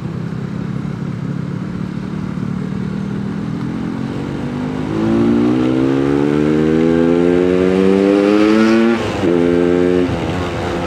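Yamaha RX King's single-cylinder two-stroke engine running on the move: steady at low revs for about five seconds, then the revs climb steadily as it accelerates, dipping briefly about nine seconds in and falling off again near the end.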